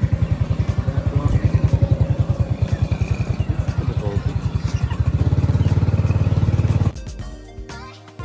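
Small motorcycle engine running while riding, with a rapid, even pulsing that grows louder and steadier about five seconds in. Near the end it cuts off suddenly to background music.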